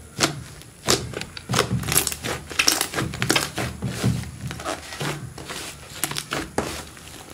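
Hands squeezing, stretching and kneading a large mound of thick, soft slime: an irregular run of squelches, pops and clicks, several a second.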